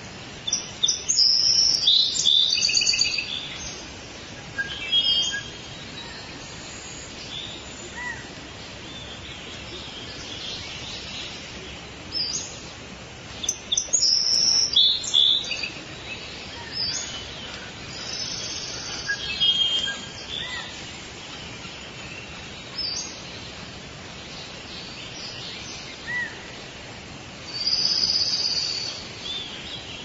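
Songbirds singing in short phrases of quick high chirps and trills over a steady background hiss. The songs come in clusters, loudest about a second in and again around halfway through.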